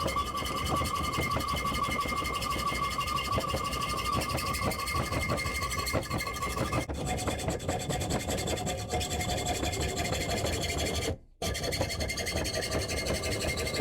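A bicycle mount being sawn through by hand to make a clutch holding tool: steady, fast rasping strokes of the cutting blade, broken by a brief gap about 11 seconds in.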